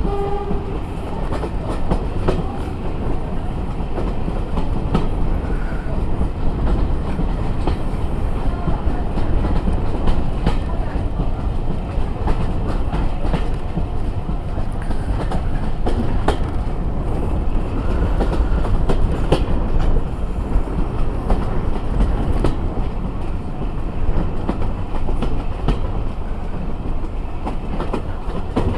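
Diesel-hauled passenger train, behind Class 45 locomotive 45 060, running at speed, heard from an open carriage window. A steady rumble is broken by scattered sharp clicks of the wheels going over rail joints.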